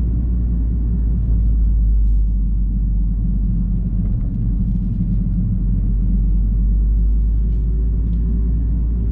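Inside the cabin of a 2007 Honda Civic Type R (FD2) on the move: a steady low drone from its K20A four-cylinder engine and aftermarket Seeker exhaust, mixed with the road noise of low-profile 18-inch tyres.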